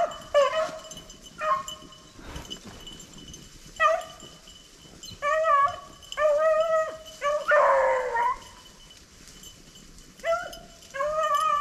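Hunting beagles baying on a rabbit's scent trail: a string of short bays with gaps between, and one longer, falling howl about eight seconds in.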